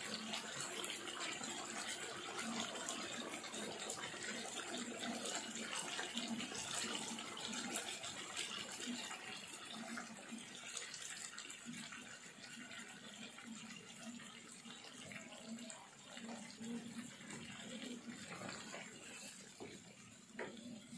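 A pan of rendang sauce simmering with a steady bubbling sizzle. About ten seconds in, thick coconut milk is poured in, and the sizzle becomes quieter. Near the end a wooden spoon stirs it.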